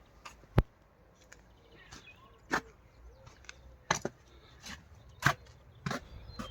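About six sharp, irregularly spaced knocks on wood, the first the loudest, as work goes on at the wooden polytunnel door.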